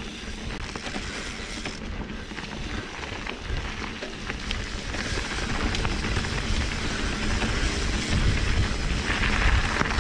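Mountain bike riding fast down a dirt and leaf-covered trail, heard from a chest-mounted camera: wind buffeting the microphone, tyres rolling over the dirt, and rattles and knocks from the bike over bumps, louder near the end.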